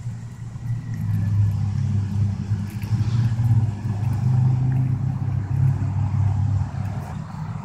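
A motor engine running steadily with a low rumble, swelling and easing a little.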